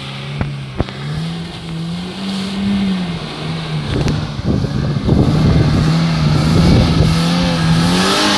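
Toyota Kijang Innova engine working under load as the car ploughs through deep mud, its pitch wavering up and down with the throttle and growing louder as it approaches.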